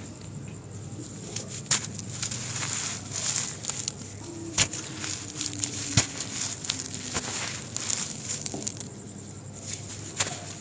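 Hands squeezing and crumbling dry balls of sand and dirt: a grainy crunching and crackling with a few sharp cracks as clumps break apart, and crumbs and dust falling away.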